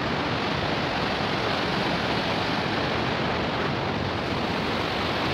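Fast-flowing river rushing steadily over rocky rapids.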